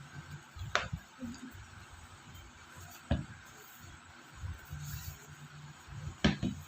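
Handling noise from an unboxing: three sharp taps or clicks spread a few seconds apart, with light rustling between them.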